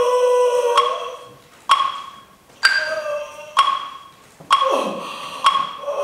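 Bell-like struck percussion notes from the show's music track, six strikes about a second apart, each ringing out and dying away.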